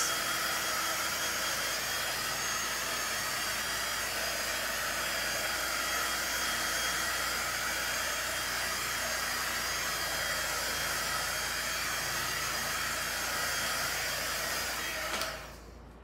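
Handheld craft heat gun (heat wand) blowing steadily as it is passed over wet acrylic pouring paint to pop air bubbles, a continuous whooshing hiss with a faint high whine. It switches off abruptly near the end.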